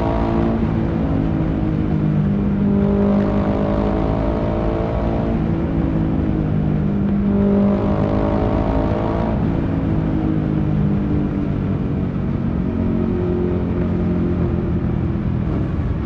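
Ducati Sport Classic's air-cooled L-twin engine accelerating under way in a road tunnel. The note rises in pitch in two long pulls through the gears, then holds a steadier, lower note in the second half.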